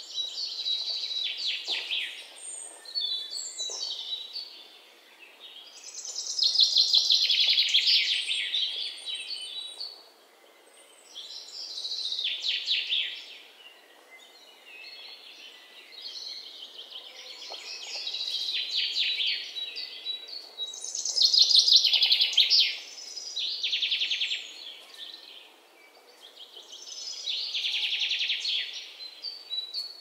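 Birdsong: songbirds singing high, trilling phrases of fast repeated notes, each a second or three long, coming every few seconds with short quieter gaps between them over a faint background hiss.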